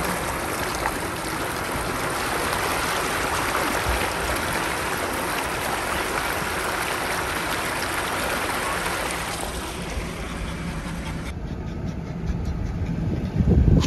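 Flood water rushing and splashing around a Jeep's wheels as it wades slowly through a flooded road, a steady wash of water noise. About eleven seconds in it turns abruptly duller, with a few low thumps near the end.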